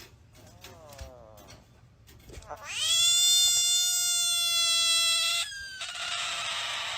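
A cat: a faint short meow falling in pitch, then a loud long yowl that rises and holds one steady pitch for nearly three seconds before cutting off, followed by a hiss.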